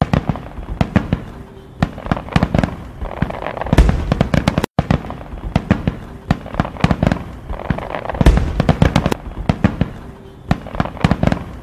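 Fireworks going off in quick succession: dense crackling pops with a heavier bang about every four seconds. The sound cuts out for an instant just before five seconds in.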